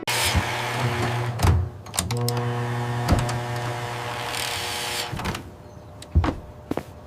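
An electric motor runs steadily with a hum and whirr, with a few knocks, then cuts off about five seconds in, leaving a quieter stretch with a couple of thuds.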